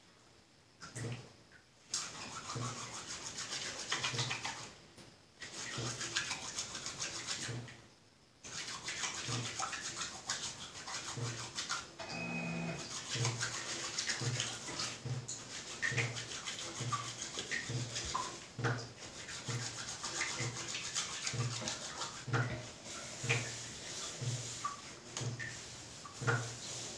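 Wet hands rubbing soap made from tree material between the palms and then scrubbing it into wet hair. The rubbing is steady, with a couple of short pauses early on.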